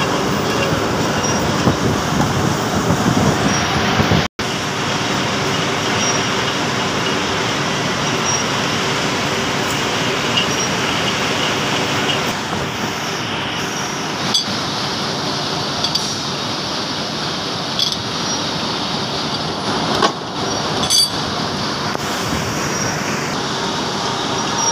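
Metal lathe running, its motor and gearing giving a steady mechanical noise, with a few short metallic clinks in the second half.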